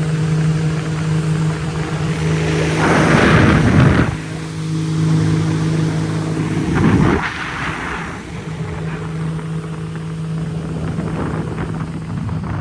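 Motorboat engine running at a steady pitch under way, with loud rushes of wind and water noise on the microphone, the strongest about three seconds in and again about seven seconds in.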